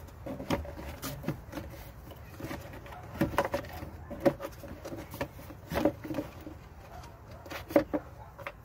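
Irregular plastic clicks and knocks from a new engine air filter being pushed and worked into the tight-fitting plastic airbox of a 2004 Subaru Impreza's 2.5 L engine, a few knocks louder than the rest.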